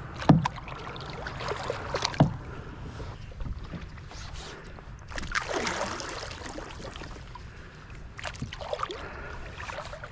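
Kayak paddle strokes swishing and splashing through calm, shallow water, each stroke a soft swell of water noise. A couple of sharp knocks come in the first two seconds.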